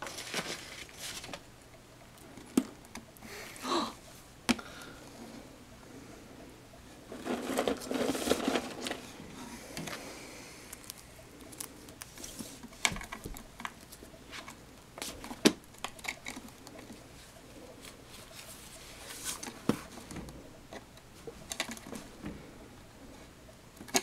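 Cockatiel nibbling a pretzel: irregular small crunches and clicks of beak on pretzel, with a longer stretch of crackling about a third of the way in.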